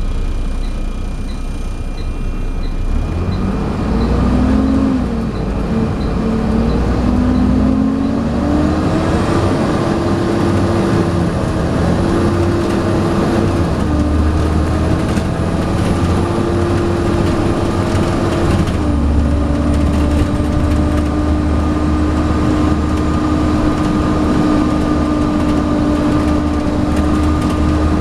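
Volvo B7TL double-decker bus's diesel engine heard from on board, pulling away hard with its pitch climbing in steps through the gears, a thin high turbo whistle (the "hoover") above it while under full throttle. About two-thirds of the way through, the pitch drops as it changes up, and it runs on steadily. Light regular ticks, about two a second, sound over the drone at the start.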